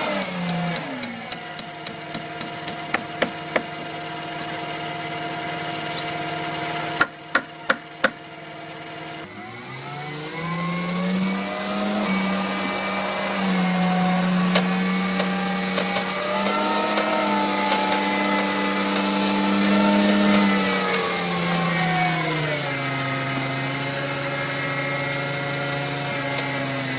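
An engine runs throughout, its speed rising about ten seconds in and falling again near the end. Over the first few seconds there is a quick series of sharp clicks, and about seven seconds in four loud knocks in a row.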